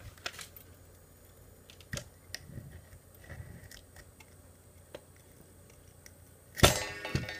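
Cuckoo clock being handled against a wall: faint scattered clicks and small knocks, then one loud knock with a short ring near the end as the clock goes onto its hanger on the wall.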